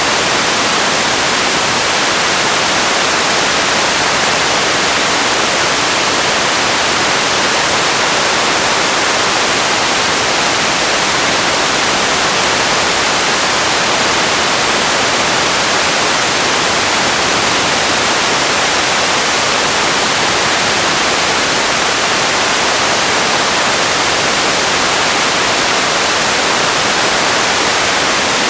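Steady, unchanging hiss of ambience noise, bright and thin with little bass, like static.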